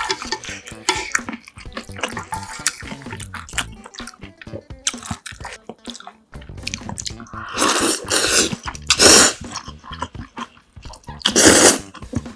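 Wooden chopsticks stirring spicy ramen noodles in a metal pot, with many small clicks and wet sounds. After that come three loud slurping bursts of noodles and soup, the last of them about eleven seconds in.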